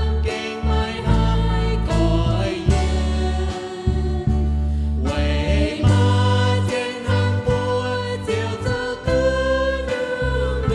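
A hymn sung in Mien with instrumental accompaniment: the sung melody moves over sustained bass notes that change about once a second.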